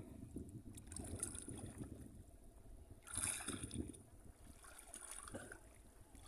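Shallow floodwater sloshing and splashing around the legs of people wading through it, with a louder stretch of splashing about three seconds in.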